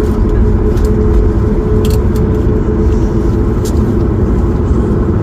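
Airliner cabin noise with the engines running steadily as the aircraft taxis after landing: a loud, even rumble with a steady hum through it and a couple of faint clicks.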